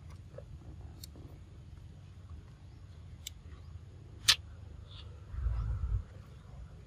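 Outdoor ambience with a steady low rumble, a few faint ticks, and one sharp click a little over four seconds in. A short, louder low rumble follows between five and six seconds in.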